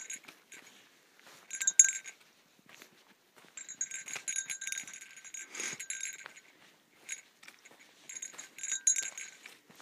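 A small metal bell jingling in irregular bursts of ringing and clinking, with a longer spell of jingling in the middle.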